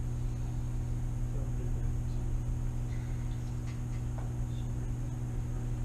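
Steady low room hum with a faint high steady whine, and brief faint murmurs of voices a couple of times.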